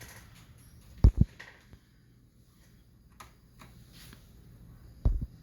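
Two quick double thumps about four seconds apart, from attempts to power on a Macintosh IIci. No fan or startup chime follows: the machine stays dead, which the owner suspects is a bad PRAM battery.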